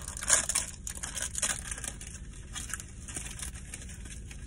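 Plastic snack wrapper crinkling and tearing as it is opened by hand, a dense run of crackles in the first second and a half, then sparser rustles.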